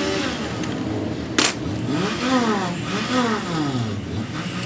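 An engine being revved up and down over and over, its pitch rising and falling about once a second, with one sharp click about a second and a half in.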